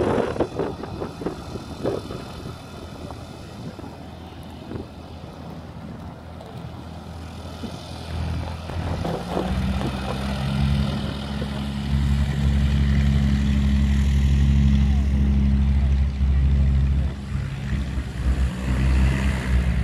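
De Havilland Tiger Moth biplane's piston engine and propeller running as it taxis, swelling about eight seconds in into a loud, steady low drone. Wind buffets the microphone in the first seconds.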